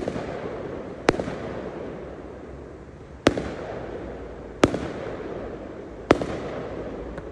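Aerial fireworks bursting: five sharp bangs, one to two seconds apart, each followed by a fading noisy tail.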